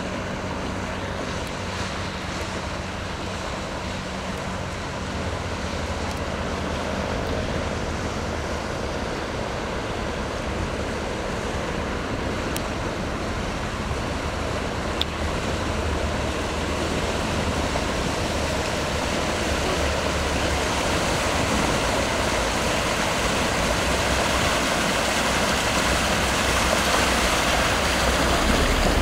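Passenger ferry's engine hum and the rush of its bow wave, growing steadily louder as the boat approaches.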